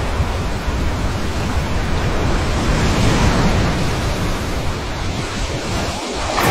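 Rushing, surging floodwater from a film soundtrack: a dense, steady wash of water noise, heaviest in the low end.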